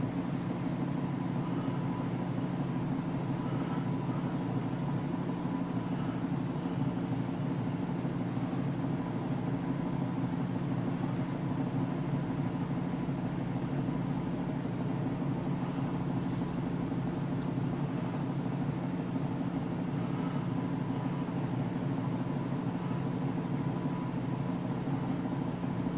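Steady low mechanical hum with a faint, thin high tone held level throughout.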